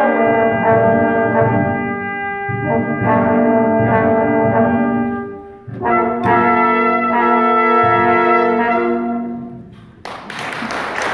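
A small brass band of two trumpets, French horn, trombone and upright bass playing sustained chords, with a short break about six seconds in, then a final held chord that fades out just before ten seconds. Applause breaks out as the piece ends.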